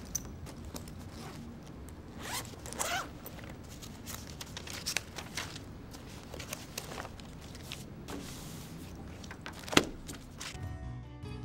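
Zipper on a black fabric carrying case being pulled open in a few quick rising rasps, with rustling and handling of the case. A single sharp knock comes near the end, and music starts just after it.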